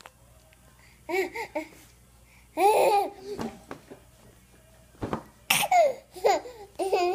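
A baby laughing and babbling in short high-pitched bursts: a few quick ones about a second in, a louder one near three seconds, and a run of several near the end.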